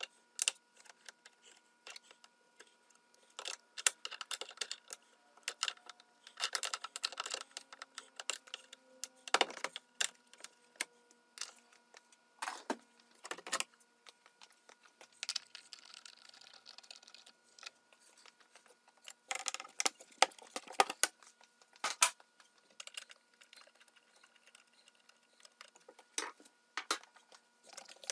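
Scattered clicks, taps and rattles of hand tools on fasteners and hard plastic parts in a car's engine bay, as the air-intake assembly, its tubes and covers are unfastened and lifted out.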